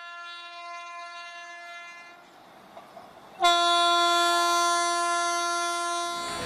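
A train horn sounding: a steady blast fades out about two seconds in, then a much louder long blast starts suddenly about three and a half seconds in and holds for nearly three seconds.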